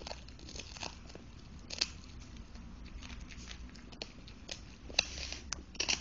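A Cavalier King Charles spaniel gnawing and crunching a microwaved, puffed hard-cheese dog chew. Irregular crackly crunches, with a sharp crack about two seconds in and several more near the end.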